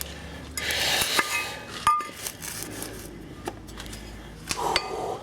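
Metal clinks and knocks of steel parts and tools being handled at a truck's rear hub, with one sharp metal-on-metal strike that rings briefly about two seconds in and a few lighter clicks later.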